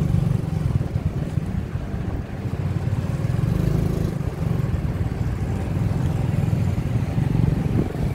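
Motorcycle engine running steadily, heard from the rider's seat as a continuous low rumble.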